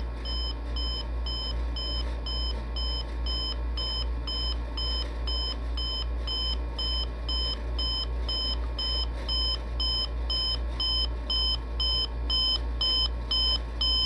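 Emerson SmartSet clock radio's wake alarm beeping: a fast, evenly spaced run of high electronic beeps, pretty quiet but gradually getting louder, the alarm's rising-volume wake mode climbing toward the set radio volume.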